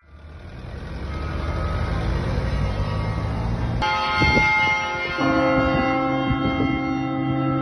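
Large church bells ringing from the Mafra basilica towers, starting suddenly about four seconds in, with deeper bells joining about a second later. Before the bells there is only a low rumbling noise that grows louder.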